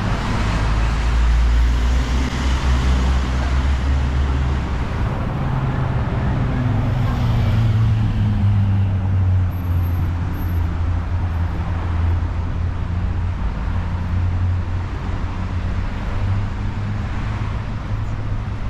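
City street traffic: cars passing along the road, over a steady low engine hum.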